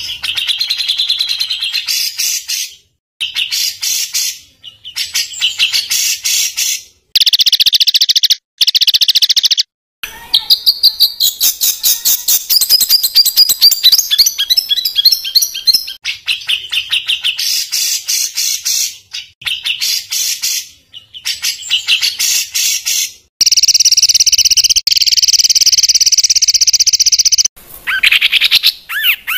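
Songbird singing loud, harsh, rapid-fire 'tembakan kasar' phrases: fast runs of repeated high notes, broken by several abrupt cuts to silence, with a long harsh buzzing rattle near the end.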